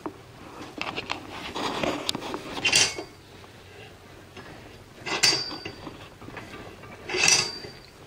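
Craftsman bench vise being cranked by hand to crush the end of a pipe: metal-on-metal knocks from the vise, with three sharp metallic clanks that ring briefly, about three, five and seven seconds in.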